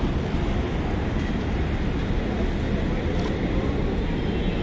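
Busy street ambience: a steady rumble of traffic mixed with indistinct voices.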